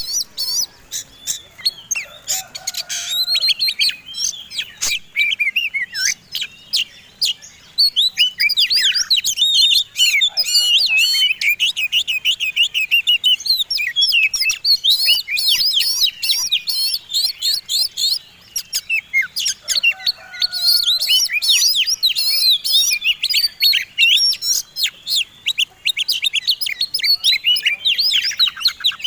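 Oriental magpie-robin (kacer) song: a fast, nearly unbroken run of varied chirps, trills and sharp whistles, with only brief pauses. It is the full, aggressive song of a competition fighting-class kacer, as used in a lure recording to set caged kacer singing.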